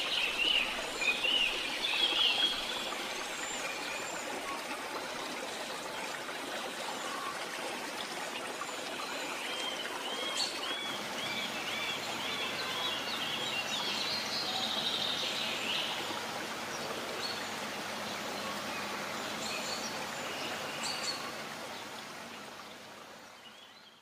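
Birds chirping and calling over a steady rushing background noise, with a quick run of repeated chirps about halfway through; it all fades out near the end.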